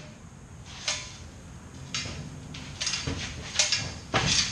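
A steel bandsaw stand and the 4x6 metal-cutting bandsaw on it being tipped and shifted by hand: a series of clunks and scrapes, about one a second, loudest near the end.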